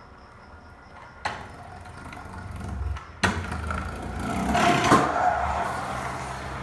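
Kick scooter wheels rolling over concrete, growing louder as the rider comes close and passes by, then fading a little. Two sharp knocks come about a second and three seconds in.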